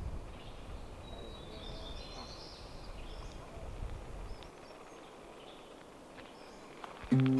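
Outdoor ambience with a low rumble that fades about halfway through and a few faint bird chirps. Music cuts in abruptly just before the end.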